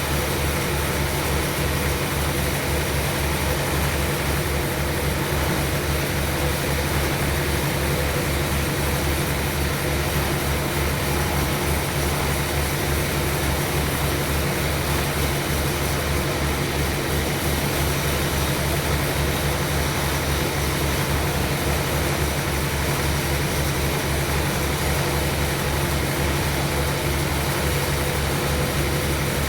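Sawmill machinery running steadily: an engine-driven saw with a fast, even low throb and a constant hum that never changes in level.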